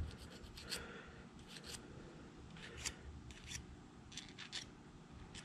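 Faint scraping of a small hand file on a steel part from a TH400 transmission valve body, in about a dozen short, irregular strokes, smoothing out pry marks and sharp edges.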